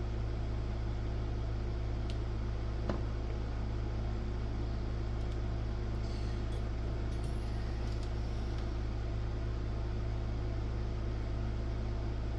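Steady low electrical hum with a few faint clicks and ticks of small bench work, the strongest click about three seconds in.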